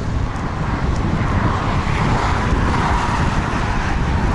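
Strong, gusty wind buffeting the microphone on a moving electric bicycle, a steady low rumble. A hiss swells and fades again around the middle.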